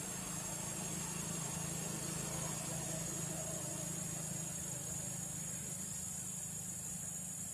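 A steady low hum, engine-like, under a steady high hiss, with no distinct calls or knocks.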